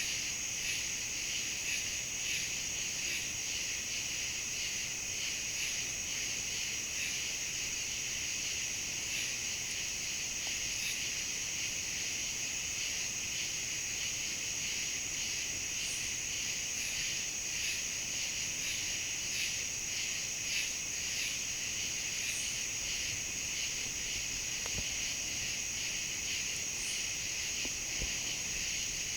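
Steady chorus of insects: a continuous high buzzing that never lets up, with faint scattered ticks over it.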